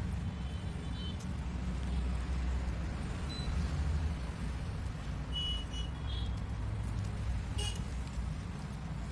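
Steady low background rumble, with a few short high-pitched chirps scattered through it, the most prominent about five and a half and seven and a half seconds in.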